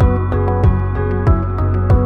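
Background music: sustained chords over a steady low beat.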